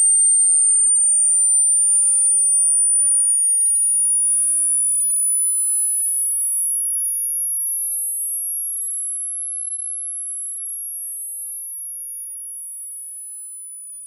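A very high pure test tone from a hearing-test frequency sweep, slowly rising in pitch and gradually fading. A second, fainter tone slides down from above to meet it about two-thirds of the way in, after which the audible tone drifts lower as it fades. The uploader takes this falling tone for an out-of-band artifact of YouTube's audio compression that replaces the attenuated test tone.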